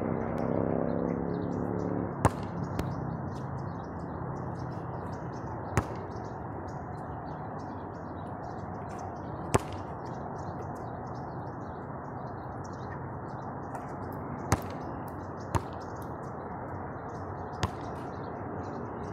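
A basketball striking the hoop and bouncing on the court: about seven sharp single thuds, spaced several seconds apart, over a steady background hiss. A low hum fades away over the first two seconds.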